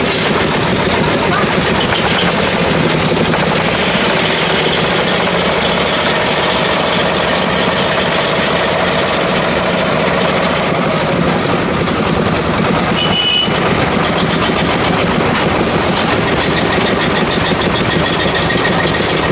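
Heavy diesel construction machinery running steadily with a dense, continuous rattle. A short high beep sounds about thirteen seconds in.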